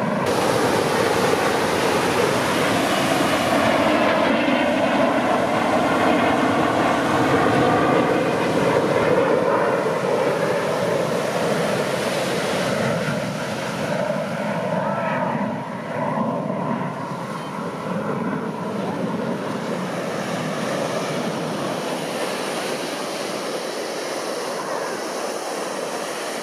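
Airplane engine drone passing over and slowly fading, over a steady rush of surf.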